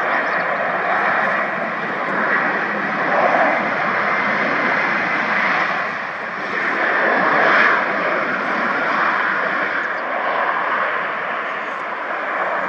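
Aircraft engine noise, a steady rushing drone that swells to its loudest about seven to eight seconds in.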